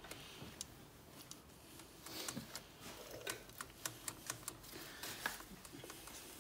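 Faint, irregular small clicks and light knocks as an Alfa Romeo 159's dual-mass flywheel is rocked back and forth by hand against its clutch. The loose play behind them is what the mechanic judges a failed dual-mass flywheel.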